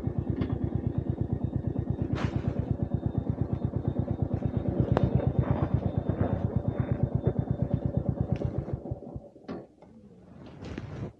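Royal Enfield Meteor 350's single-cylinder engine idling with an even beat of about eight firing pulses a second, then switched off about three-quarters of the way in. A few faint clicks follow.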